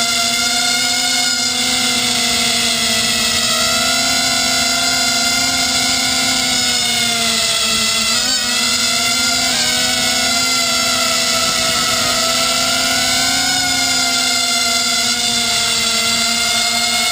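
Four brushless motors and propellers of an FPV250 racing quadcopter, recorded from its onboard camera, whining steadily in flight. The pitch drifts up and down with the throttle, with a quick dip and recovery about eight seconds in.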